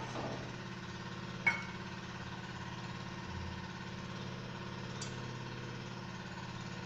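A steady low mechanical hum from a running motor, with a single sharp metal clink of steel utensils about a second and a half in.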